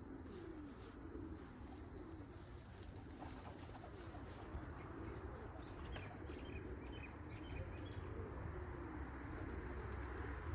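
Domestic pigeons cooing repeatedly, low wavering calls one after another, over a steady low rumble.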